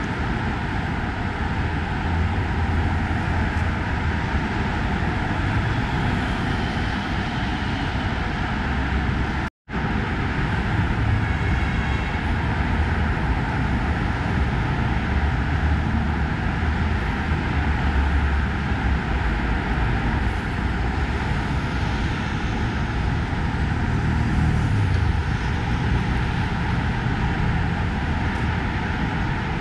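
Steady noise of heavy traffic on a major multi-lane avenue, cars and trucks passing in a continuous stream, with the sound cutting out completely for a split second about ten seconds in.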